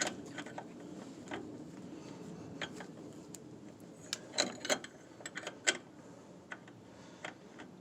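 Ratchet driving a 5/8 crow's-foot wrench, clicking in short irregular strokes as it tightens a brake line flare nut into a master cylinder, with a quicker run of clicks about four to six seconds in.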